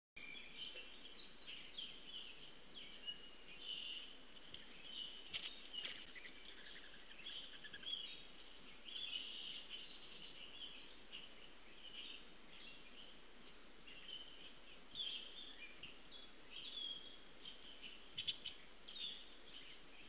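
Songbirds chirping and singing outdoors, many short overlapping calls throughout. A few sharp taps come about five seconds in and again near the end.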